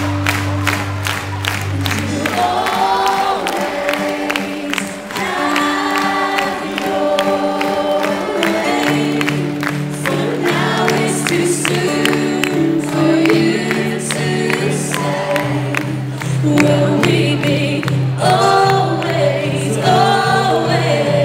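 Live pop-rock band playing, with a large crowd singing the words along with the band.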